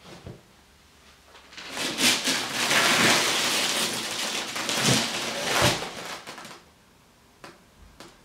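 Dry uncooked spaghetti, packed upright in a wooden box, snapping and crunching under a person's body weight: a dense crackle of breaking strands that builds about a second and a half in and lasts about five seconds, with a few louder snaps near its end.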